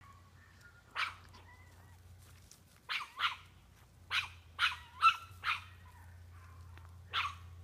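Chihuahua barking at a deer: about eight short barks, some single and some in quick runs of two or three, with pauses between the groups.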